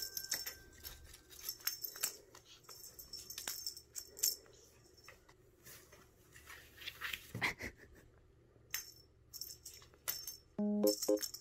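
Irregular rattling and jingling of a cat's wand toy as cats leap and swat at it, with a soft thump about seven seconds in. Light keyboard background music comes in near the end.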